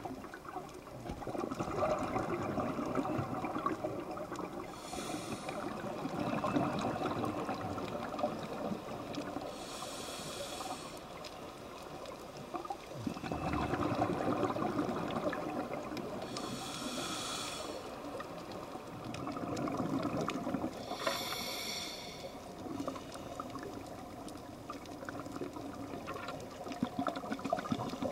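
Scuba diver breathing through a regulator underwater: five short hissing inhales a few seconds apart, each followed by a long gurgle of exhaled bubbles.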